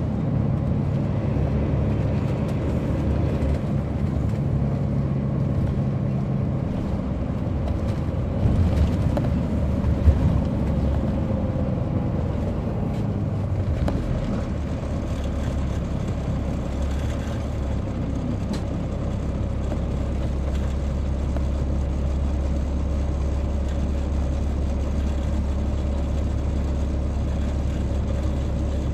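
Caterpillar C13 inline-six diesel of an MCI D4500CL coach, heard from inside the passenger cabin while the bus is under way. The engine note is stronger at first, then settles to a steady low drone about halfway through, with a single sharp thump about ten seconds in.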